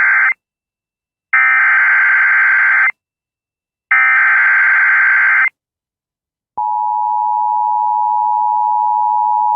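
Emergency Alert System SAME header: the end of one digital data burst, then two more full bursts of buzzing tones, each about one and a half seconds long and a second apart. At about six and a half seconds the steady two-tone EAS attention signal starts, announcing a severe thunderstorm warning.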